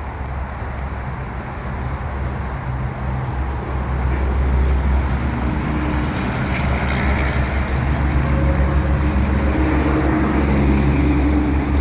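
Interstate highway traffic going by: a steady rush of tyres and engines with a deep rumble. It gets louder about four seconds in, and a steady engine hum comes in over it soon after.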